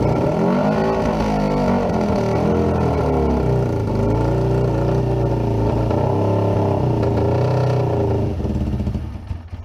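Suzuki GS550 air-cooled inline-four engine catching on choke and running unevenly, revs rising and falling, then dying away near the end. The owner takes the stalling for fuel starvation, the carbs not getting petrol.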